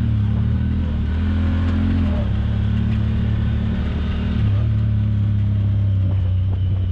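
Off-road vehicle's engine running steadily under way, its pitch shifting about two seconds in and again a little after four seconds as the throttle changes.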